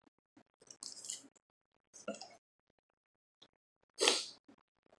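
Packaging rustling and crinkling as small items are handled and taken out of a cardboard box, in a few short bursts, the loudest about four seconds in.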